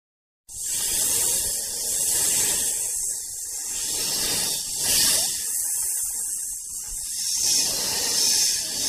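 A loud, rushing hiss that cuts in sharply about half a second in and swells and dips.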